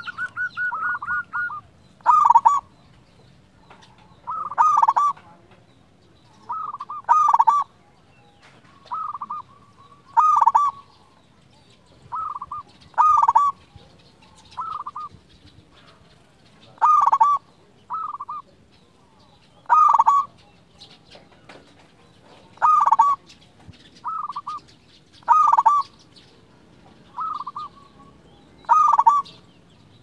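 Zebra dove (perkutut) cooing: short phrases of quick, bubbling notes repeated every two to three seconds, some louder and some softer, with a longer run of notes right at the start.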